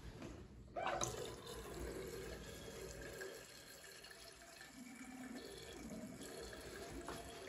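Hot water running weakly from a bathroom basin tap into the basin, a faint steady trickle and splash, briefly louder about a second in. The feeble flow comes from a gravity-fed hot supply with very little head, the tanks sitting just above the ceiling.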